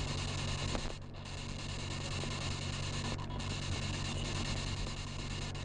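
Spirit box sweeping through radio stations: a steady hiss of static over a low hum, briefly cutting out twice.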